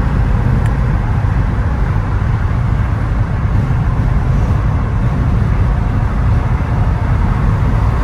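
Steady road and wind noise of a car driving at highway speed, heard loud from inside the cabin, with a deep rumble.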